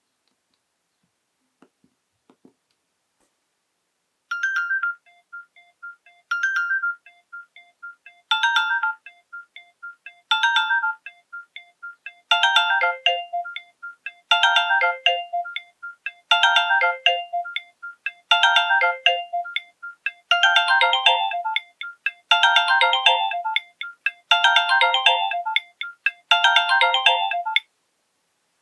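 Nokia 6234 mobile phone playing a polyphonic ringtone through its loudspeaker, a few seconds in, after a couple of faint clicks. A short electronic melodic figure repeats about every two seconds, with more notes and a lower part joining in as it builds, and it cuts off abruptly near the end.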